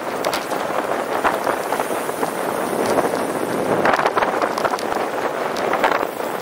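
Street noise heard from a moving bicycle: a steady rush of wind and traffic, with many small clicks and knocks throughout, swelling louder about four seconds in.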